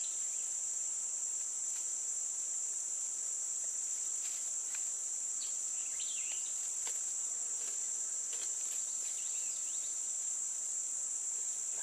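Steady high-pitched chorus of insects shrilling without a break, with a few faint clicks and rustles of wire being worked by hand and some faint bird chirps.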